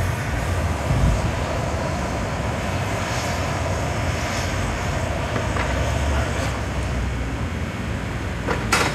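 Handheld gas torches burning with a steady rushing roar as their flames heat the neck of a hot glass vase. A short, sharp burst of noise comes near the end.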